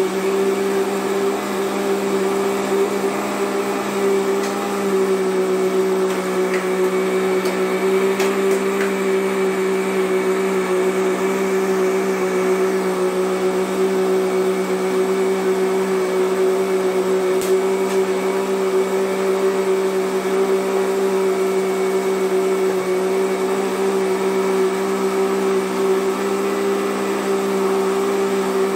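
Countertop electric blender running at a steady speed, blending a liquid ice-cream base, with an even motor hum.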